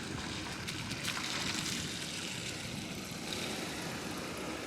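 A vehicle engine running steadily under a constant hiss of outdoor noise.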